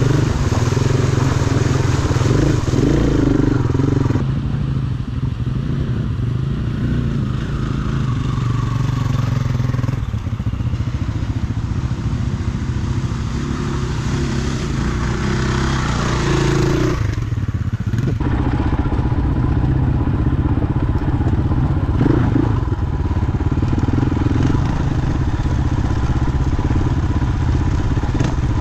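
Adventure motorcycle engine running while riding, its note shifting a few times with throttle and gears, with a brief break about 17 seconds in.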